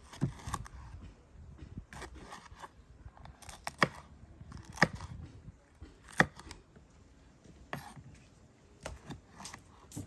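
Kitchen knife slicing a red pepper on a wooden cutting board: irregular sharp knocks of the blade meeting the board, with softer cutting sounds between them.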